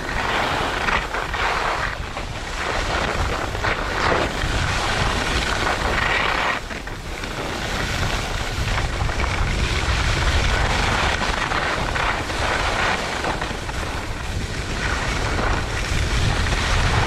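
Wind buffeting a GoPro camera's microphone as a skier moves downhill, a continuous low rumble, with skis scraping and hissing over packed, groomed snow.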